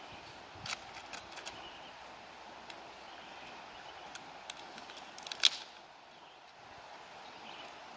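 Steady outdoor background noise with a few sharp clicks and snaps scattered through it, the loudest a quick cluster about five and a half seconds in.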